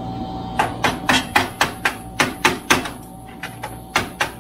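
Rapid sharp metal-on-metal taps, about four a second, as a tool knocks the exhaust's V-band clamp loose on a Can-Am Maverick X3. The taps pause about three seconds in, then two more come near the end.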